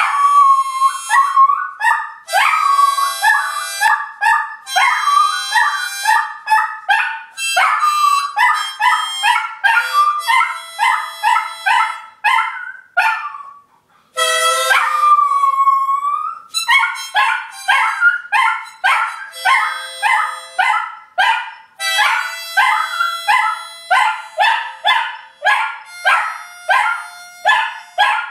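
Harmonica played in short repeated notes while a shih tzu howls along, its wavering howls sliding up and down in pitch over the music. About halfway through, after a brief pause, comes a longer howl that dips and rises.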